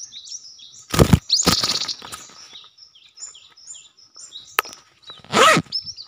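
Small birds chirping: quick, short, high chirps repeated over and over. Loud knocks and rustles come about a second in and again near the end, with a sharp click just before the last one.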